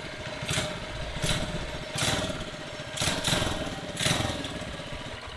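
Small single-cylinder engine with a newly fitted exhaust pipe being revved in repeated throttle blips, roughly one a second, each rev climbing and then falling back toward idle.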